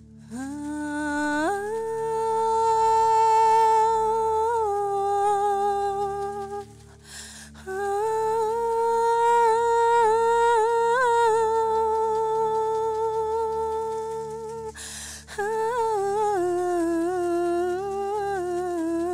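A woman's voice singing long, held wordless notes, like a hum, in three phrases with short breaks between them and a wavering pitch near the end. A low steady drone plays beneath.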